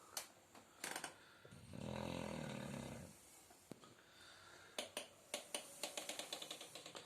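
Shar Pei dog snoring in its sleep: one long, low snore about two seconds in, then a quick run of soft clicks near the end.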